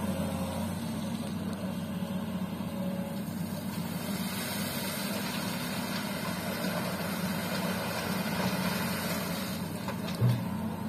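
Komatsu PC200 excavator's diesel engine running steadily as it swings and loads a dump truck, with a short knock about ten seconds in.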